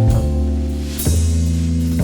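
Slow instrumental jazz-blues music with a drum kit over a deep, steady bass line, and a sharp drum hit about a second in.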